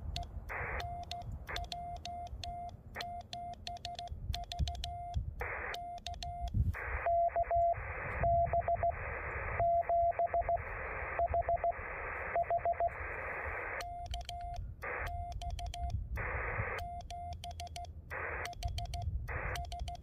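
Morse code tones from a Yaesu FT-817 transceiver as a straight key is worked by hand: one steady beep keyed into dots and dashes. Stretches of hiss from the radio's receiver come and go between the tones, and the key makes light clicks.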